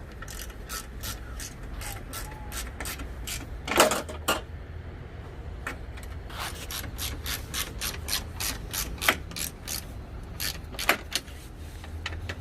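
Hand ratchet clicking in quick repeated strokes, about four clicks a second, with a pair of louder knocks about four seconds in.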